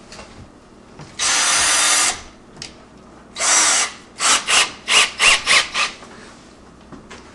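Cordless drill run in short bursts: a run of about a second, a shorter one whose motor pitch rises and falls, then a string of quick trigger blips. It is spinning a tape-wrapped post-screw fid held in its chuck.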